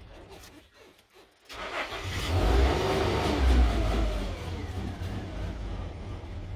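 A 2005 Nissan Pathfinder R51's 4.0-litre V6 dies away to a stop, then is restarted after about a second of quiet. It catches and flares to around 2,000 rpm, and the revs fall back to idle.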